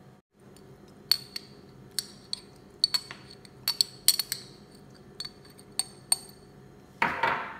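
Metal spoon clinking against a glass jar of Korean salted shrimp as it is scooped out: about a dozen light, irregular clicks. A short burst of noise comes near the end.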